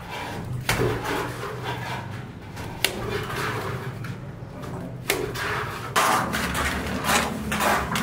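Building-site work noise: a few sharp knocks and clatters, like buckets and tools being handled, then rougher scraping from about three-quarters of the way in, over a steady low hum.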